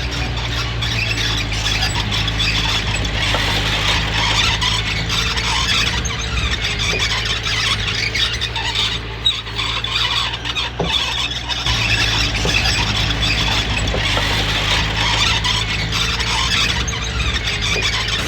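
Komatsu D20P crawler bulldozer working, its diesel engine running steadily under a loud, continuous squealing and scraping from its steel tracks.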